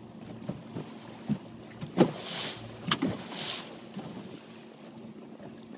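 Hobie Adventure Island kayak trimaran under way: scattered knocks and creaks of the hull and rigging, with two sharper knocks and two short hissing swishes around the middle.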